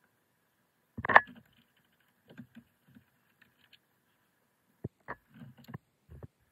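Plastic knocks and clicks as a 6th-generation Mitsubishi Mirage blower motor and fan wheel are worked loose and lowered out of their plastic housing. One sharp knock about a second in is the loudest, with a cluster of smaller knocks near the end.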